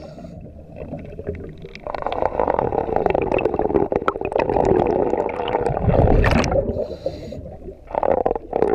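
Underwater sound of a scuba diver breathing through a regulator, with exhaled bubbles gurgling past the microphone. It is quieter for about the first two seconds, then bubbles for about five seconds, and starts again briefly near the end.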